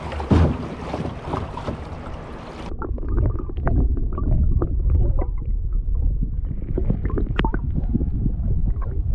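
Water and wind noise from a canoe paddled on a river, with a splash just after the start. About three seconds in, the sound turns suddenly muffled as the microphone goes underwater: a low rumble of moving water with small clicks and bubble pops.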